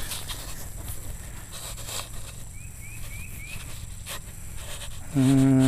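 Quiet outdoor background with a few soft handling clicks and a faint run of short, high, rising chirps repeating a few times a second. About five seconds in, a loud, drawn-out voice comes in and holds a steady pitch.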